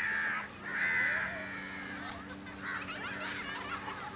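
Crows cawing: two harsh calls of about half a second each in the first second and a half, and a shorter one near three seconds in, with faint chirping of smaller birds between.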